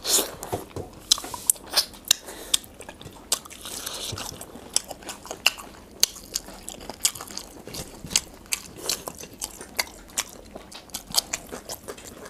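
Two people eating rice and chicken curry with their hands: close, quick irregular lip smacks and chewing clicks, many per second.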